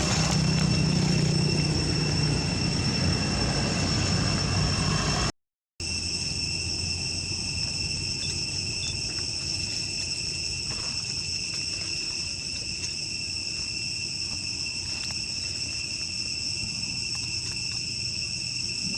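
Steady, unbroken high-pitched drone of insects calling. For the first five seconds a low engine drone runs beneath it. The sound drops out briefly about five seconds in.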